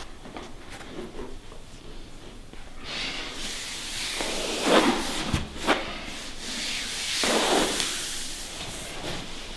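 Hands rubbing and stroking over bare skin of the lower legs in a massage: a soft swishing friction, faint at first and louder from about three seconds in, with a few stronger strokes near the middle.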